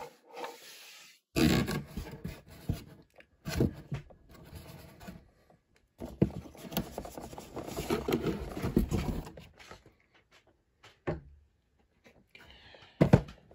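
Handling noise from a cardboard Advent calendar being moved about: irregular scraping and rubbing with several sharp knocks, going quiet for a couple of seconds near the end before one more sharp knock.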